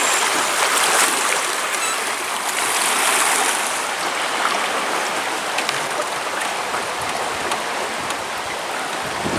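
River water rushing through a riffle, a steady wash of moving current.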